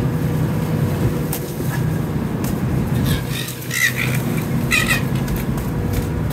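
A boat's engine running with a steady low drone, with two brief high-pitched sounds about four and five seconds in.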